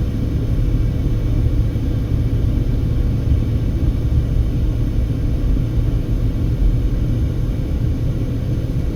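Steady low rumble of a car driving along, engine and tyre noise heard from inside the car.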